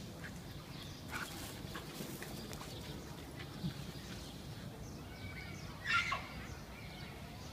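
Birds chirping in short arched calls over a steady outdoor background, with one short, loud animal call about six seconds in.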